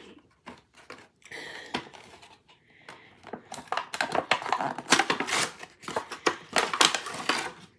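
A cardboard Barbie doll box and its plastic packaging being handled and pulled open: a few scattered clicks, then from about halfway in a dense run of rustling, crackling and clicking.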